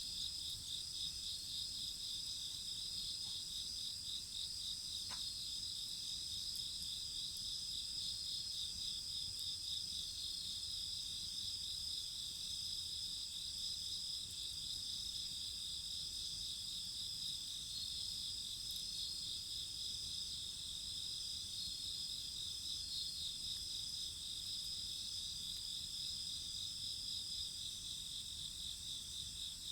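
Steady chorus of crickets and other singing insects, several high trills overlapping, one of them pulsing rapidly. A single faint snap comes about five seconds in.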